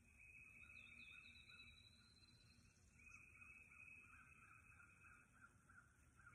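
Faint birdsong of the dawn chorus: a quick chirping trill in the first few seconds, then a run of short repeated notes about three or four a second, over a faint steady high note.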